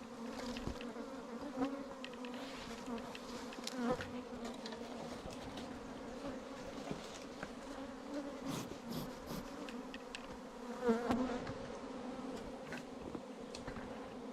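Many honey bees buzzing in a steady, even hum as their colony is disturbed. Single bees fly close past now and then and swell louder for a moment, most clearly about four seconds in and again near eleven seconds.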